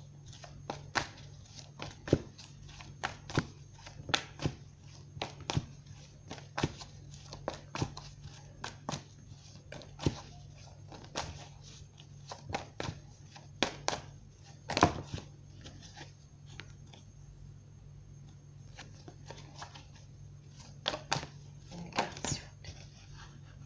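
A deck of tarot cards being shuffled by hand, the cards tapping and slapping together in short sharp clicks about once or twice a second, with a few quieter seconds about two-thirds of the way through. A steady low hum sits underneath.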